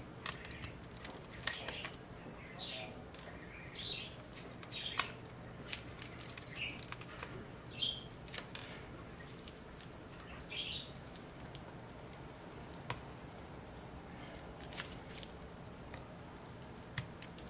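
Small clicks and taps of a precision screwdriver and tiny screws being worked inside a MacBook Air, with short high chirps mixed in during roughly the first eleven seconds.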